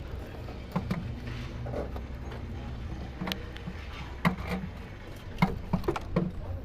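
Scattered short knocks and metal clinks of hand work on a car, over a low steady hum that fades about five seconds in.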